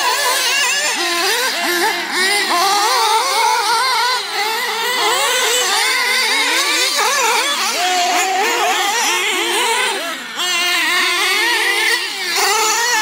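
Several nitro RC cars' small glow engines racing, their high-pitched whines overlapping and revving up and down constantly as the cars accelerate, brake and jump.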